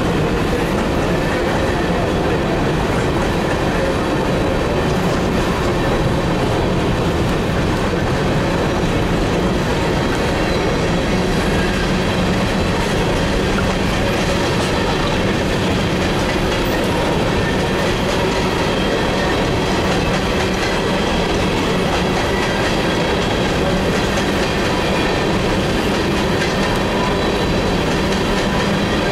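Coal gondolas of a BNSF unit coal train rolling past at steady speed. Their steel wheels make a loud, unbroken rumble on the rails, with faint steady ringing tones mixed in.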